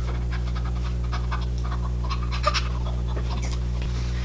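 Steady low electrical hum, with a woman's faint breathy laughing over it.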